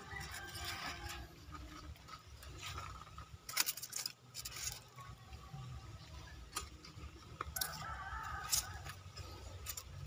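Plastic net cups knocking and scraping against a styrofoam sheet as they are pushed into its holes: a few light clicks and scrapes, over a faint steady low hum.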